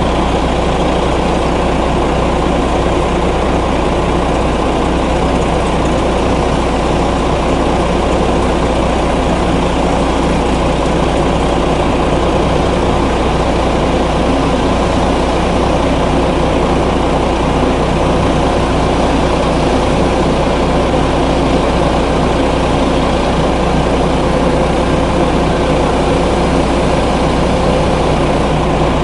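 Heavy diesel truck engines running at low revs, a steady drone that does not change in pitch or loudness.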